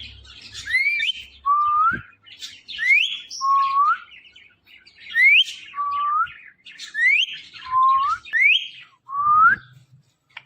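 Ringneck parrot whistling the same two-note phrase over and over: a quick high upward sweep followed by a lower rising note, about seven times.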